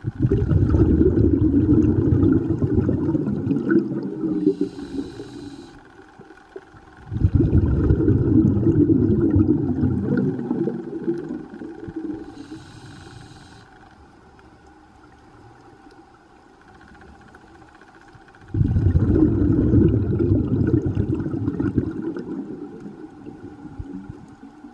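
Scuba diver breathing through a regulator underwater: three exhalations, each a loud bubbling rush that starts suddenly and fades over four or five seconds, with a short hissing inhalation before the second and before the third.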